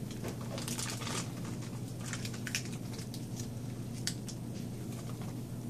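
Plastic candy wrappers crinkling as they are handled and unwrapped, in several short spells of crackling, over a steady low hum.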